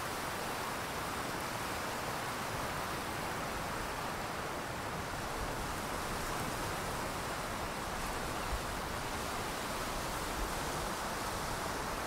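Steady, even rushing noise with no rise and fall, strongest in the middle range, with a couple of faint low bumps near the end.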